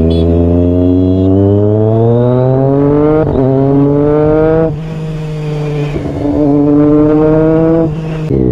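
Triumph Daytona 675's three-cylinder engine accelerating through the gears, its pitch climbing and stepping down at each upshift, about three seconds in and again near the end. The throttle eases for a second or so about five seconds in before it pulls again.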